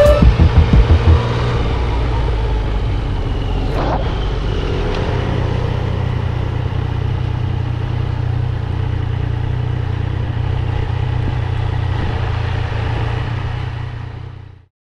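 Motorcycle running steadily along a town street, heard onboard: a steady low engine rumble with road and wind noise. Background music stops about a second in, and the sound fades out near the end.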